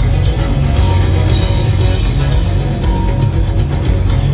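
Live rock band playing: electric guitars and two drum kits, with a bright cymbal wash about a second in, heard from among the audience.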